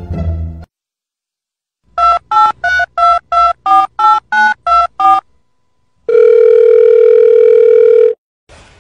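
Telephone keypad touch-tones, dubbed on as a sound effect: about ten quick two-note beeps over some three seconds, then one steady telephone tone for about two seconds.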